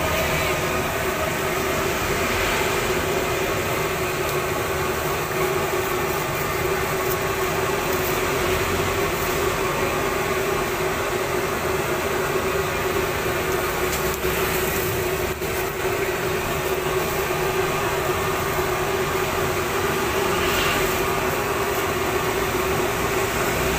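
Steady rushing roar with a constant low hum, as from a gas stove burner running at full flame under a wok of frying oil.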